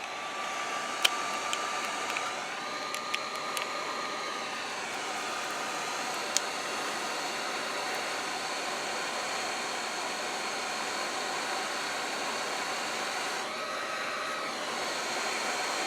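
Heat gun blowing steadily with a faint fan whine, shrinking heat-shrink sleeving over soldered joints. A few light clicks in the first several seconds.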